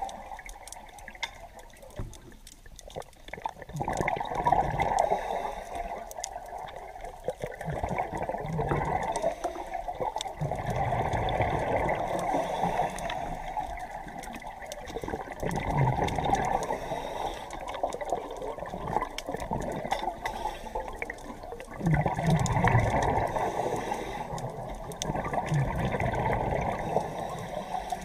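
Scuba diver's regulator breathing underwater: spells of bubbling exhalation every five or six seconds over a steady watery hiss.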